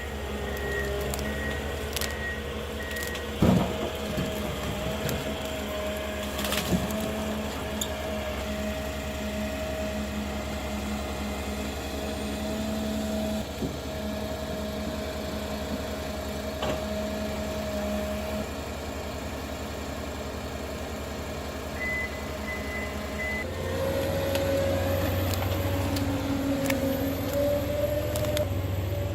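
Heavy diesel forestry machine running steadily with a held whine, a few sharp knocks about three and a half and seven seconds in, then its note changes and grows louder near the end.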